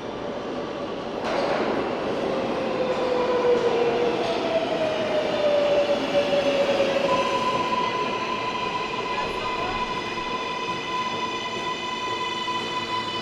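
New York City L train subway running. The rumble jumps up suddenly about a second in, a whine slides down in pitch, then several steady high whining tones hold to the end.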